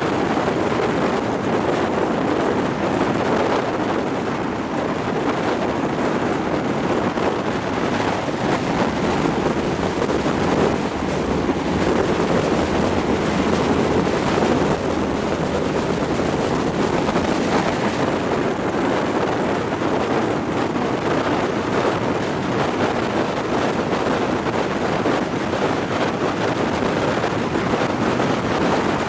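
Steady rush of wind and running noise from a moving passenger train, with wind buffeting the microphone held out of the carriage window.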